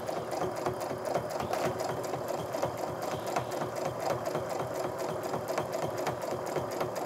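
Domestic sewing machine stitching steadily through layered quilt fabric with a ruler foot: a rapid, even run of needle strokes that does not let up.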